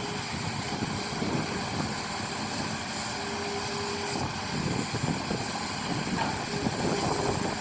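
Excavator's diesel engine running steadily, with a faint whining tone that comes in for about a second midway and again near the end.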